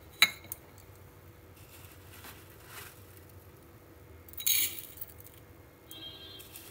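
Kitchen handling sounds. There is a sharp clink just after the start and a softer one a moment later, then a short rustle about four and a half seconds in, over quiet room tone.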